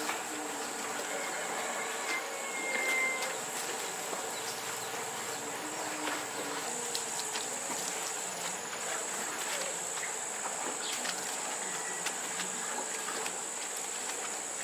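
Steady high-pitched drone of insects, crickets or cicadas, with many scattered light clicks and taps over it.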